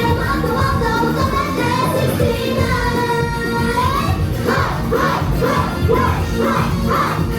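Japanese idol group singing live over a pop backing track. There is a long held sung note in the middle, then a steady pulsing beat from about halfway.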